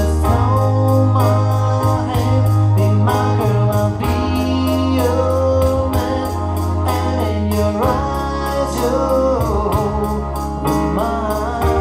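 Background music: a slow song with a singing voice that bends between notes over long-held bass notes.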